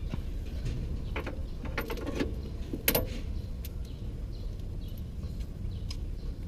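Metal clinks and knocks, like tools and fittings being handled, with a cluster of them between one and three seconds in and one sharp clank just before three seconds. A steady low hum runs underneath.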